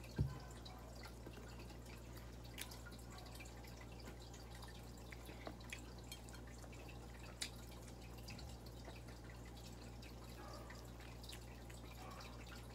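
Quiet eating sounds: scattered small wet clicks and smacks of chewing and fingers picking at fried fish, with one dull thump just after the start, over a low steady hum.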